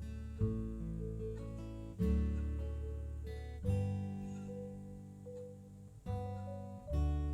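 Slow, calm background music on acoustic guitar: chords struck every second or two, each left to ring and fade.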